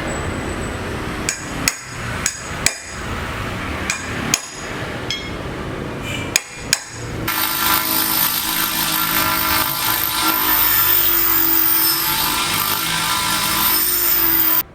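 Construction-site work: several sharp hammer strikes at irregular intervals over a background din. About seven seconds in, a louder power tool starts running steadily with a high whine, then cuts off suddenly near the end.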